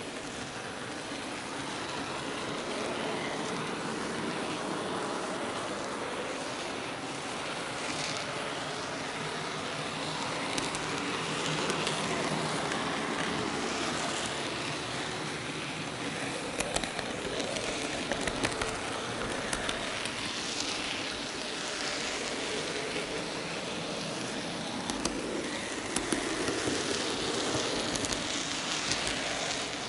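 Running noise of an N gauge model train, heard from a camera car riding on it: a steady rushing rumble of wheels on the rails. In the second half there are scattered clicks as the wheels cross rail joints and points.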